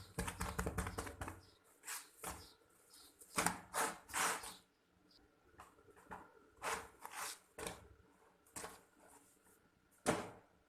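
Irregular handling noises: a run of short scrapes, rubs and light knocks as batbout flatbread is turned and pressed on a clay griddle, with a sharper knock near the end.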